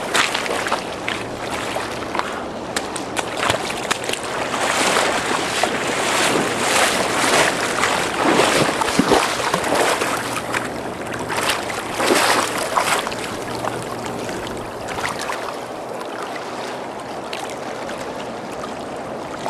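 Churning river water, with wind buffeting the microphone in gusts that are strongest through the middle.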